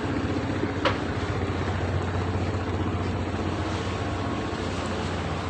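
An engine running steadily with a low, even hum, and one short click about a second in.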